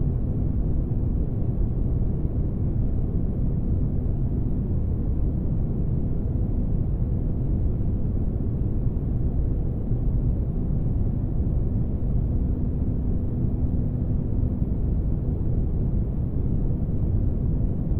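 Steady, deep rumbling spaceship-interior ambience: dense low noise like an engine room, with a faint hum that fades in and out.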